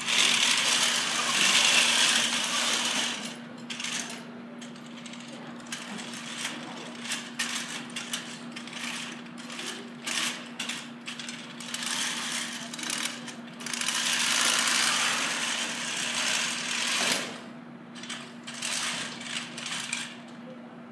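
FRC competition robot driving on carpet: its drive motors and gearboxes whir loudly for a few seconds at the start and again about two-thirds of the way through. Between them come rattling clicks and clanks from the aluminium frame and mechanisms, over a steady low hum.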